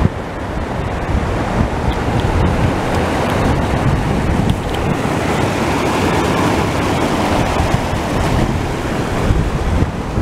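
Wind buffeting the camera microphone: a steady, loud rumbling rush of noise.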